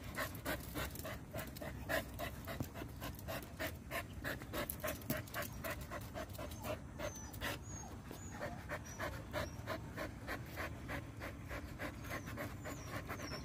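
A husky panting steadily with its tongue out, about three quick breaths a second.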